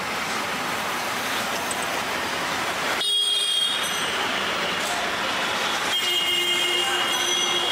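Busy street traffic noise, a steady wash of vehicles. The sound changes abruptly about three seconds in, and a long high-pitched tone sets in near the end.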